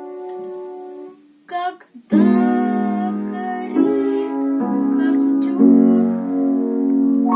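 Piano accompaniment with a child singing: a held chord fades out, then after a short pause new chords are struck about two seconds in and sustain.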